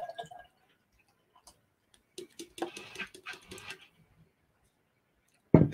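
Beer poured from a can into a glass: a sharp click at the start, then a stretch of splashing, glugging pour about two seconds in. A loud knock near the end.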